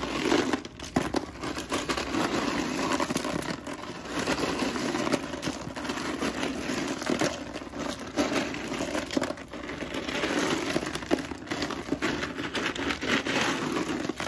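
Plastic breast milk storage bags crinkling and ice cubes shifting and knocking as they are packed by hand into a small cooler: a steady rustle broken by many sharp clicks.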